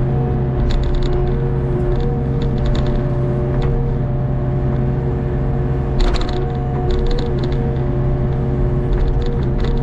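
Hitachi ZX48U mini excavator running under work: the diesel engine holds a steady hum and the hydraulics whine as the boom and bucket move. Short bursts of metallic rattling come every second or two, the loudest about six seconds in.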